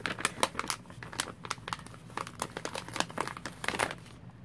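Thin clear plastic crinkling as a clear plastic sheet and a hexagon chicken-wire stencil are handled. Quick, irregular crackles stop near the end.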